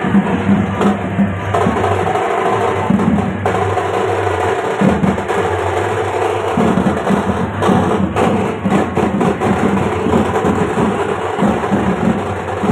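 Background music with drums and percussion.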